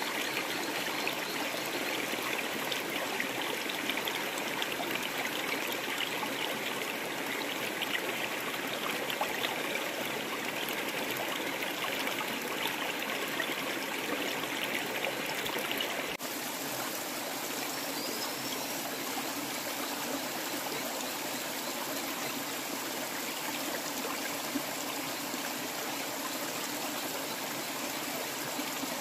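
Shallow stream running and trickling over rocks, a steady rush of water. Its tone shifts abruptly a little over halfway through.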